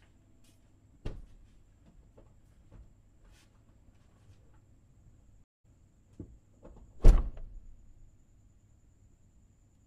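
Car door of a BMW E34 M5 being handled as someone gets in: a sharp knock about a second in, a few small clicks, then a loud door slam about seven seconds in.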